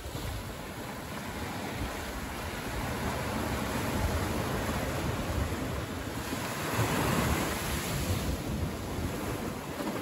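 Ocean surf: small waves washing in over sand between rocks and draining back, the wash growing louder to a peak about seven seconds in, then easing.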